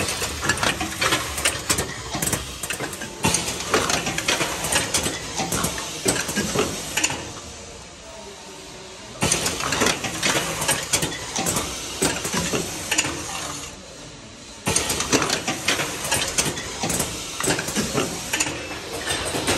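Automatic rotary cup-filling and foil-sealing machine running: a dense, rapid clatter of mechanical clicks and knocks, with a couple of quieter stretches and sudden jumps back up in loudness.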